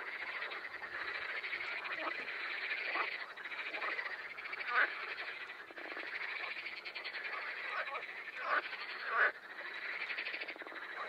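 Frogs chorusing in a marsh: a dense, rapidly pulsing croaking trill, with a few louder single croaks about five, eight and a half and nine seconds in.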